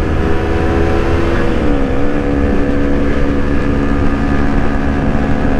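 Honda CBR250RR's parallel-twin engine running steadily at about 100 km/h, heard from the rider's seat with wind rushing over the microphone. The engine note drops slightly about a second and a half in, then holds steady.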